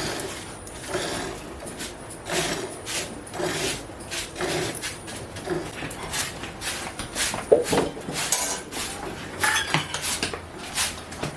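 Buffalo being milked by hand: milk squirting into a metal pail in rhythmic strokes, about two a second, with one louder thump about seven and a half seconds in.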